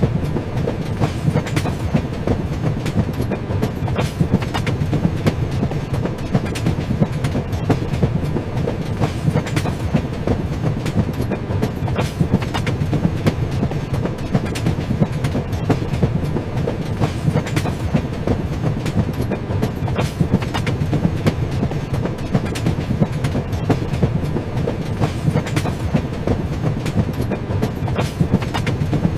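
A train running along the track: a steady low rumble with frequent sharp clicks of the wheels over the rails.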